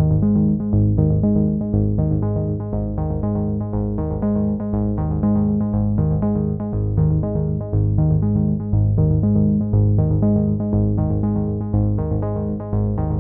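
Background electronic music: synthesizer notes repeating in a quick, steady pattern over a strong bass.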